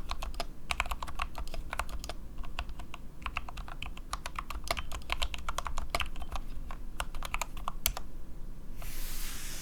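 Typing on a modded SK61 mechanical keyboard with lubed Gateron Optical Brown tactile switches and DSA PBT keycaps, the keyboard resting on a mousepad: quick runs of keystroke clacks with short pauses between them. A brief hiss comes in near the end.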